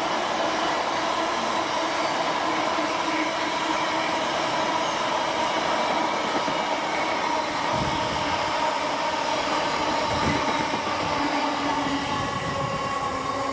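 Freight train rolling past: a steady rush and rattle of wagon wheels on the rails, with a high steady tone over it. A couple of heavier thuds come about eight and ten seconds in.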